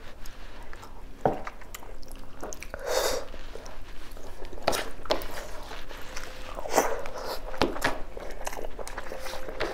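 Close-miked eating: a person chewing beef oxtail meat and rice eaten by hand, with sharp wet mouth clicks and lip smacks every second or so and a longer sucking sound about three seconds in.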